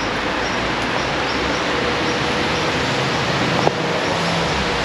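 Steady hiss of falling rain, with a single click about three and a half seconds in.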